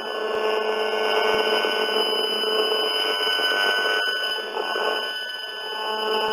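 Audio output of an Acoustimeter broadband RF meter: a steady mixture of demodulated pulsed microwave signals from mobile-phone masts, Wi-Fi and DECT cordless phones, heard as many held tones over a noisy bed.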